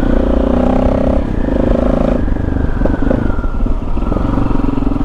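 KTM 640 Adventure R's single-cylinder engine running as the bike is ridden. Its note drops about a second in and picks up again shortly after, with a few light knocks in the middle.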